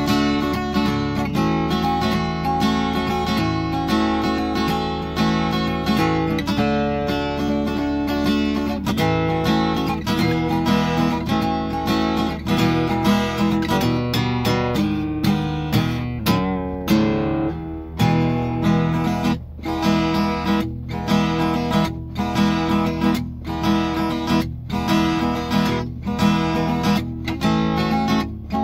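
Acoustic cutaway guitar playing chords in a steady rhythm, with one chord left to ring briefly about two-thirds of the way through.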